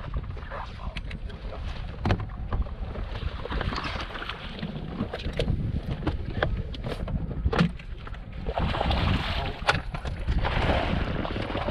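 Wind and water noise on a bass fishing boat, a steady low rumble and hiss that grows louder about two thirds of the way through, with many scattered light knocks and clicks from handling on board.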